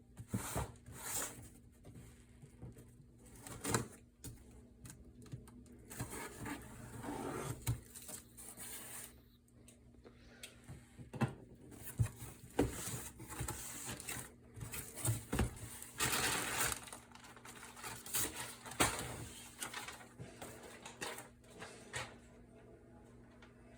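A parcel of paintball gear being unboxed by hand: scattered knocks and clicks with bursts of rustling and scraping from the cardboard and packaging.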